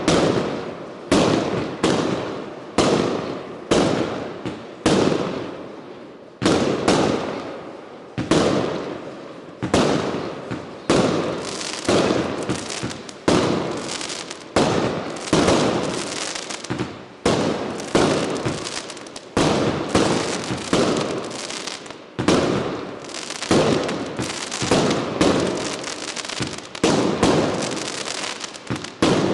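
Consumer fireworks firing a sustained barrage: a string of sharp bangs, each fading off, about one a second at first, then coming faster and overlapping from about ten seconds in.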